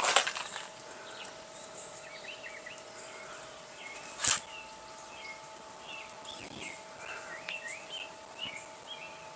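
Birds chirping repeatedly in short calls over a steady faint hum, with a sharp click about four seconds in.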